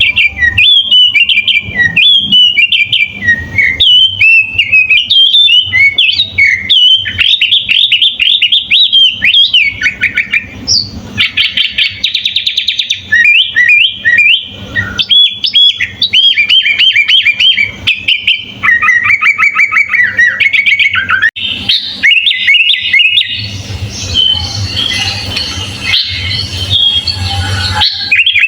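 Sooty-headed bulbul (kutilang) singing a loud, fast, varied run of chirps and whistles, with a quick trill near the middle and a denser, harsher passage in the last few seconds.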